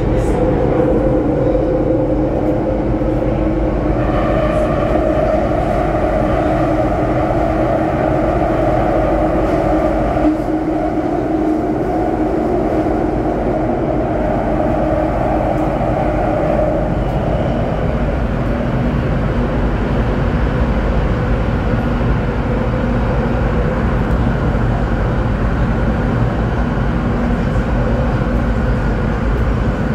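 C951 metro train heard from inside the carriage while running: a steady rumble with motor whine tones. A higher whine comes in about four seconds in, and the tones settle lower after about seventeen seconds.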